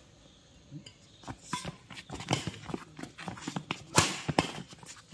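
Badminton rally: sharp cracks of rackets striking the shuttlecock mixed with players' footsteps, starting about a second in, with the loudest crack about four seconds in.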